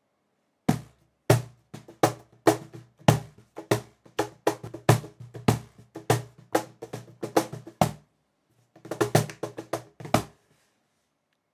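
A wooden cajón played by hand: a rhythmic groove of deep bass tones and sharp slaps. The playing breaks off briefly near eight seconds, returns in a quick flurry, and stops about a second before the end.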